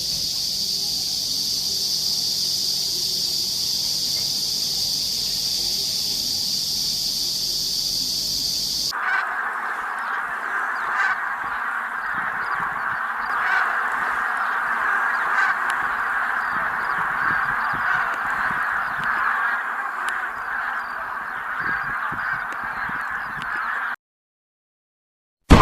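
A steady high-pitched buzz. About nine seconds in, it cuts to the dense, continuous calling of a large flock of birds, which stops abruptly after about fifteen seconds.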